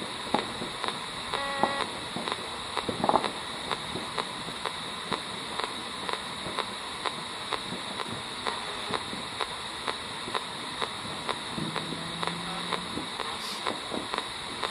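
P-SB7 spirit box sweeping the AM radio band at 500 ms per step: steady radio static with a click at each station change, about two a second, and a few brief snatches of station audio.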